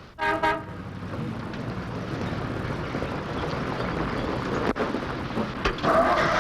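Motor vehicle engine running steadily with a low rumble, with a single sharp click about five seconds in.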